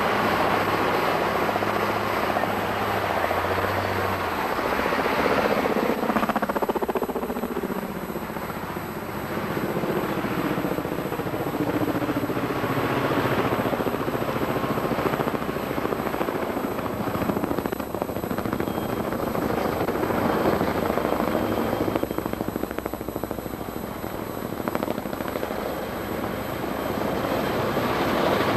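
Logging helicopter's rotor and engine running continuously, dipping in level and falling in pitch around six to nine seconds in.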